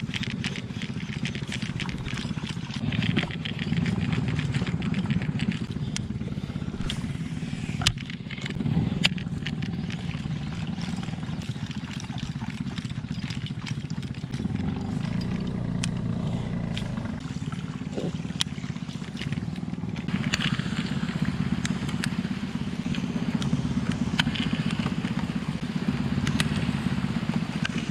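Small wooden boat's engine running steadily at an even pace. About two-thirds of the way through, the hiss of rain falling on the water joins it.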